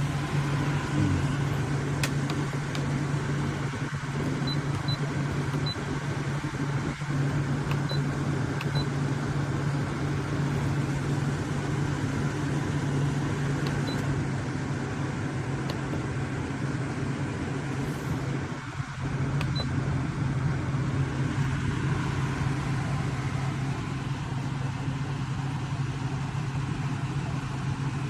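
Zeroteek 9000 BTU portable air conditioner running in cooling mode: a steady low hum with the rush of its fan air.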